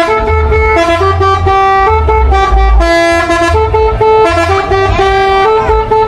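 A bus's basuri 'telolet' musical horn playing a quick melody of stepped notes, heard from inside the bus.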